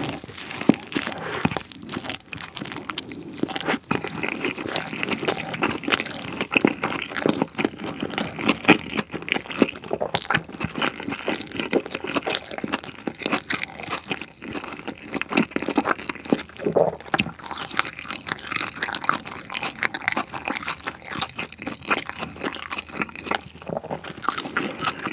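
Close-miked chewing and crunching of a Subway steak-and-cheese sandwich topped with Buldak spicy stir-fried noodles, a dense run of wet crackles and crunches, with a bite into the sandwich at the start.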